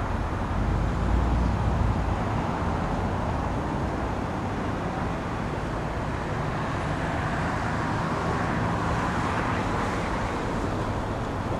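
Steady road traffic noise: a continuous hiss of passing cars, with a low rumble that is heaviest in the first couple of seconds and then eases.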